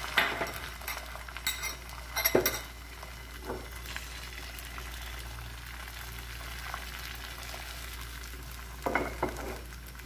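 Beaten egg frying in oil in a nonstick pan, a steady sizzle as the omelette sets, with a few short knocks near the start, about two seconds in and near the end.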